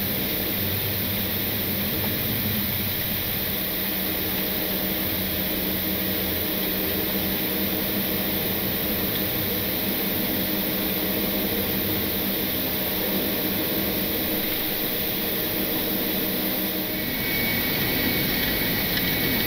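Embraer E-190's GE CF34 turbofan engines heard from inside the cockpit, a steady whine and drone with cockpit air hiss while taxiing. About seventeen seconds in, the sound changes to a louder, higher whine as thrust comes up for the takeoff roll.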